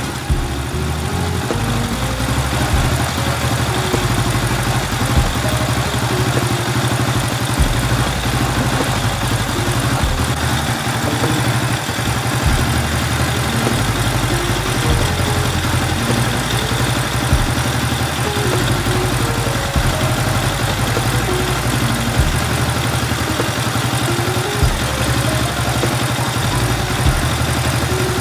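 Chinese-made 125cc single-cylinder engine in a Honda Super Cub C70, idling steadily.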